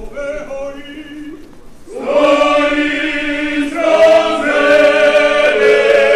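Choir music with long held chords, soft at first and swelling loud about two seconds in.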